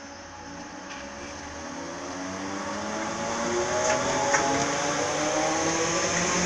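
Merseyrail electric train pulling away from the platform: its traction motors whine, rising steadily in pitch and growing louder as it gathers speed. A couple of sharp clicks come about four seconds in.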